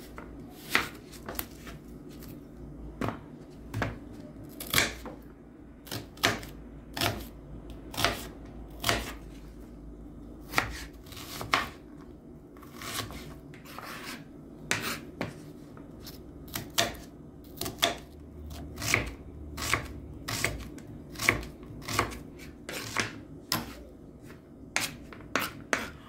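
Knife slicing a peeled onion on a cutting board: sharp knocks of the blade hitting the board, about one a second and unevenly spaced.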